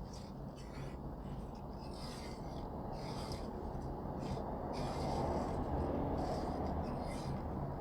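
A spatula scraping and stirring potato wedges in a pan: repeated rubbing and scraping strokes against the pan.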